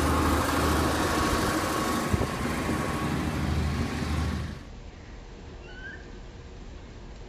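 Diesel commuter railcar idling, a steady low hum with a high whine over it. About four and a half seconds in it cuts off to a quieter outdoor background with a couple of faint bird chirps.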